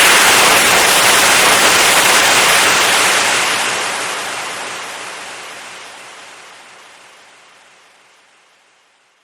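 Compressed air released in a loud, steady hiss that starts to fade about three seconds in and dies away to nothing near the end.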